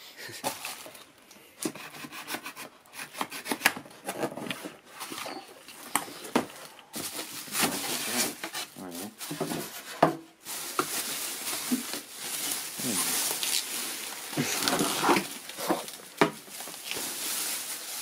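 Unpacking noise: scattered knocks and scrapes of a cardboard box and polystyrene packing being handled, then, from about ten seconds in, continuous crinkling of the thin plastic bag around the microwave as it is pulled open.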